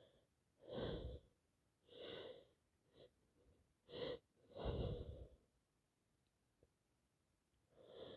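A woman with a heavy head cold taking sharp, breathy gasps in the build-up to a sneeze: about five in the first five seconds, the longest and loudest around the middle, then a pause before another starts near the end.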